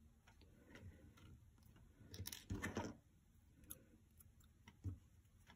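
Faint hand-sewing handling sounds: thread pulled through felt, soft rustles and a few small scissor snips at the thread.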